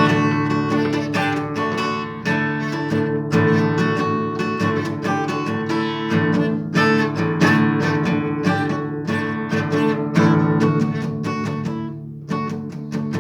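Strummed guitar playing an instrumental passage of a song, with steady, rhythmic chord strokes and no singing.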